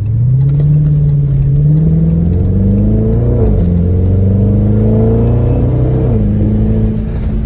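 2020 Dodge Charger Scat Pack's 392 HEMI V8 accelerating, its pitch climbing, dropping with an upshift about three and a half seconds in, climbing again and dropping with a second upshift about six seconds in, then holding steady.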